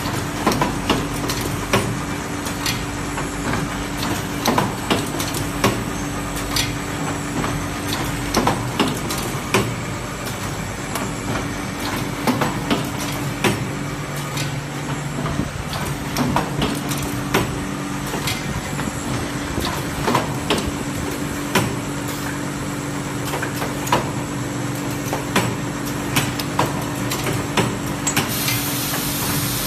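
Chaosheng CS-G8803L automatic paint roller making machine running: a steady motor hum under frequent sharp clacks of the mechanism, with a hiss near the end.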